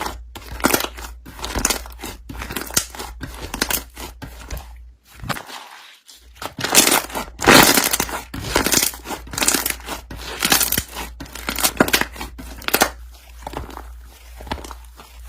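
Slime being worked by hand: squished, pressed and stretched, giving a dense run of irregular crackling pops and squelches.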